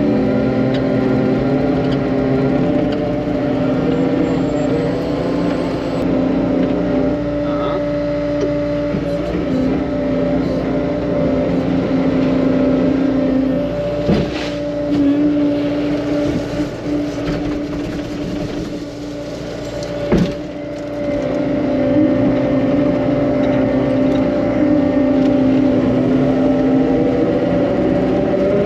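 Engine of a compact earthmoving machine running steadily under load, easing off for a few seconds in the middle, with two sharp knocks about six seconds apart.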